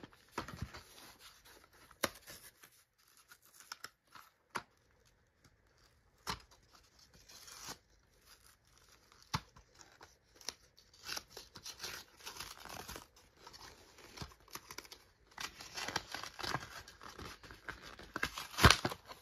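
A model aircraft's packaging being opened by hand: tape and wrapping tearing and rustling, with scattered clicks and knocks. It gets busier in the second half, with the loudest tear near the end.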